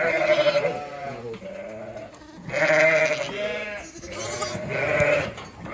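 Lambs bleating, several high calls overlapping one another, loudest at the start and again from about two and a half seconds in.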